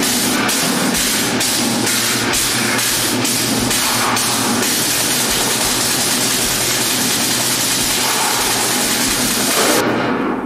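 A loud, steady hiss over a low, engine-like hum, with faint regular ticks about three a second in the first half. It cuts off at the end.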